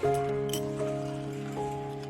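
Background music: a simple melody of held notes, changing pitch a few times.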